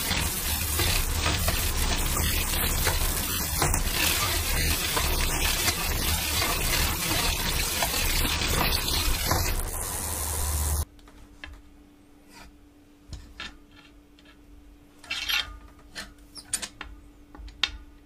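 Road bike's 9-speed chain running fast over the rear cassette and derailleur pulleys, a continuous rattling, grinding whir full of small clicks: the grinding drivetrain noise that the owner puts down to a stretched chain. About eleven seconds in it cuts off suddenly, leaving a faint steady hum and a few light clicks.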